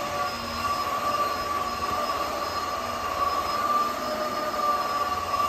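Tineco Floor One S5 cordless wet-dry vacuum mop running in auto mode while pushed along the floor: a steady motor whine with one strong high tone that wavers slightly in pitch.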